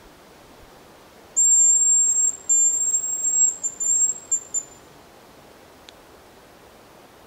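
Hazel grouse decoy whistle (manok) blown close by: a loud, very high, thin whistle of about three seconds. A long held note is followed by shorter broken notes that trail off, imitating the hazel grouse's call.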